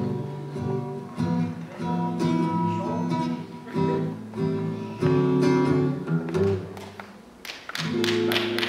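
Solo acoustic guitar strumming chords with no singing, the instrumental close of a song. Audience applause starts near the end.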